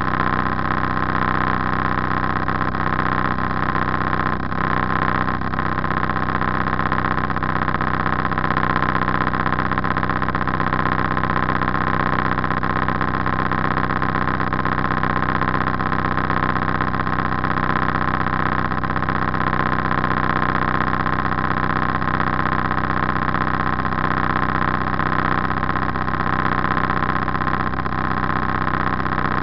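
Motor cruiser's engine running steadily under way, an even drone whose pitch and loudness do not change.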